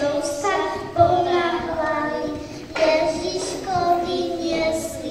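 Young children singing a song in short phrases, their held notes ringing in a large hall.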